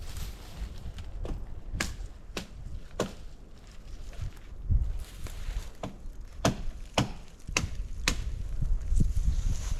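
An axe chopping wood with sharp, evenly paced strokes: two runs of about four blows each, roughly two a second, with a short pause between the runs.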